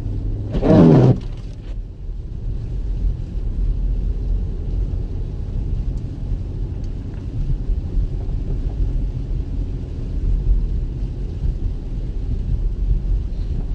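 2014 Jeep Grand Cherokee driving on a snow-covered road: a steady low rumble of engine and tyres. A brief, louder sound cuts in about a second in.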